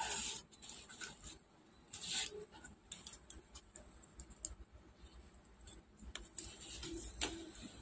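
Faint clicks and scrapes of a Bose SoundLink Revolve+ circuit board and its round plastic base being handled and fitted together, with a few sharper clicks at the start, about two seconds in and near the end.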